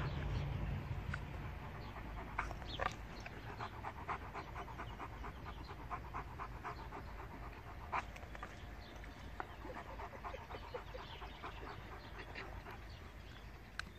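A Kangal shepherd dog panting steadily with its mouth open, about four quick breaths a second, with a few louder clicks among them.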